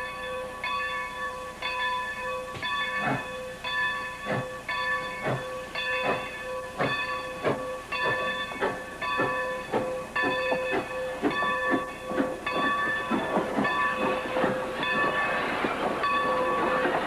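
Steam locomotive bell ringing about twice a second. From about two seconds in, the engine's exhaust chuffs start and come faster and faster as it gets under way, with a hiss of steam.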